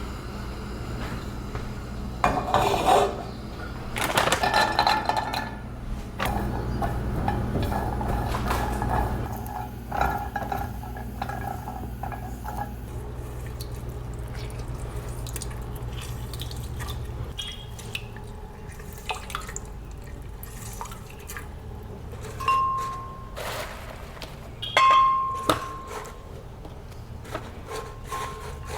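Kitchen prep sounds: dishes, utensils and glassware clinking and knocking, a few clinks ringing briefly near the end, over a steady low hum that stops partway through.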